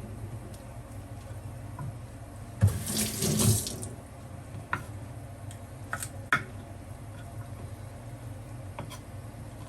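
Water running steadily, with a louder splash about three seconds in and a few light clinks afterwards.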